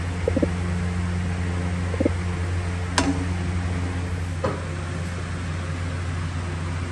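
A few light taps and clicks of a spatula against a ceramic bowl and nonstick pan while serving food, the sharpest about three seconds in, over a steady low hum.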